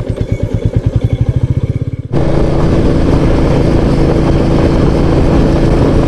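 Royal Enfield Meteor 350's single-cylinder engine thumping in a steady, even beat at low road speed. About two seconds in, the sound changes abruptly to a louder steady engine drone with wind rush as the motorcycle rides at speed.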